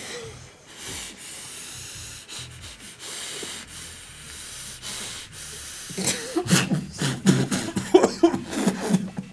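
A long drag on a vape with a rebuildable atomizer: a steady hiss of air drawn through the device, then, about six seconds in, a run of coughing.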